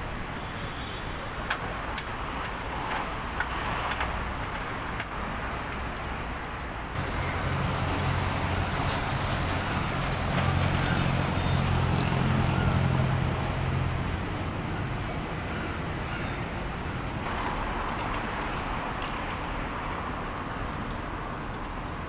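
Traffic noise with vehicle engines running. A low engine hum grows louder for several seconds in the middle, and a few sharp clicks come in the first few seconds.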